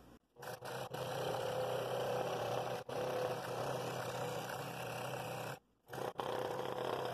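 Scroll saw running, its reciprocating blade cutting a ring out of a cherry bowl blank: a steady buzzing hum with a rasp of the blade in the wood. The sound drops out completely for a moment a few times.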